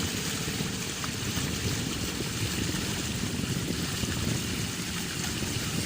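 A small launch's motor running steadily, with water rushing along the hull.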